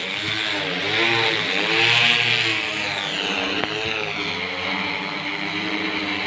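Six-rotor agricultural spray drone in flight: a steady propeller buzz whose pitch rises and falls several times as it manoeuvres, with a hiss above it, loudest about two seconds in.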